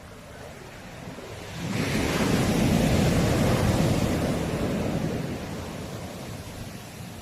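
A sea wave breaking on the shore: a rush of surf that swells suddenly about a second and a half in, then slowly washes away.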